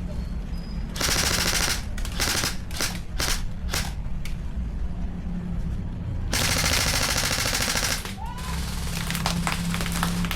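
Airsoft guns firing in rapid full-auto bursts: a burst about a second in, several short bursts after it, a longer burst of nearly two seconds past the middle, then short bursts and single shots near the end.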